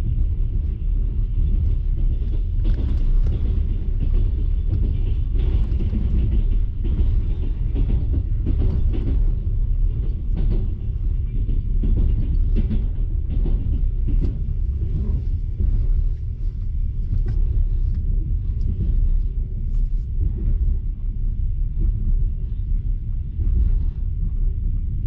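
Passenger train carriage running along the track, heard from inside the compartment: a steady low rumble with frequent light knocks and rattles at irregular spacing.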